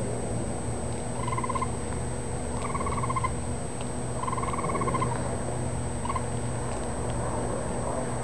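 Raccoon kit squealing for its mother: four trilling squeals, the first three about half a second to a second long and the last one short, coming roughly every one and a half to two seconds.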